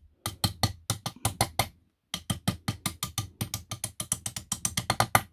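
Rapid light hammer taps, about seven or eight a second, of a steel ball-peen hammer on a ball bearing's edge in the aluminium crankcase of a Yamaha Cygnus scooter engine, driving the bearing into a seat that has been peened to grip it tighter. The tapping pauses briefly about two seconds in, then carries on.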